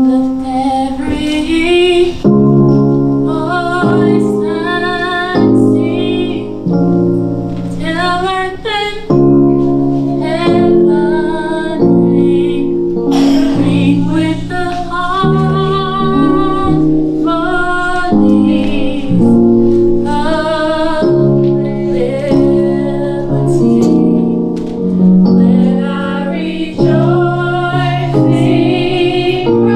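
A woman singing a slow melody with vibrato over sustained piano chords.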